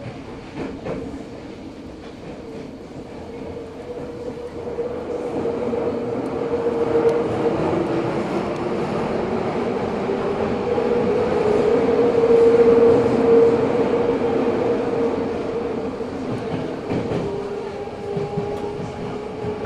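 Eidan 03 series subway car heard from inside, running through the tunnel. The train gathers speed, and the running noise and a rising motor whine grow louder before easing off near the end. A steady tone and wheel clatter lie underneath.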